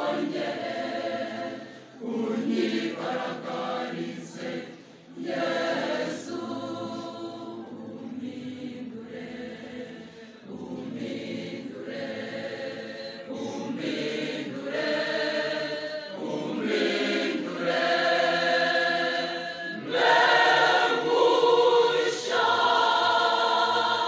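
Large mixed-voice church choir singing a hymn in phrases with short breaks between them, swelling louder over the last few seconds.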